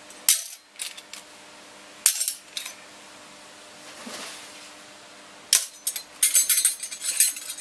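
Metal cutlery (knives, forks and spoons) clinking as it is picked up and sorted by hand: a few separate clinks in the first three seconds, then a busy run of clattering near the end.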